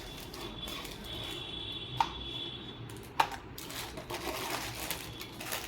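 Handling noise as a keyboard is taken out of its packaging, with two sharp clicks about two and three seconds in.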